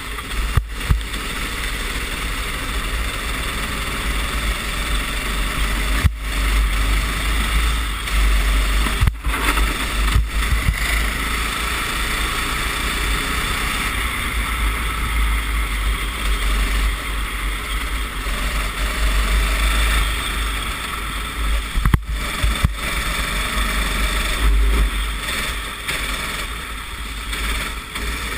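Racing kart engine running at speed on a wet track, heard through an onboard camera microphone, with a heavy low rumble and a rushing noise over it and a few brief dropouts in the sound.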